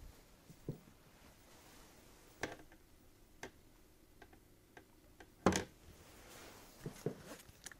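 Faint handling noise of someone moving at a desk: scattered small clicks and knocks at irregular intervals, the loudest a single thump about five and a half seconds in.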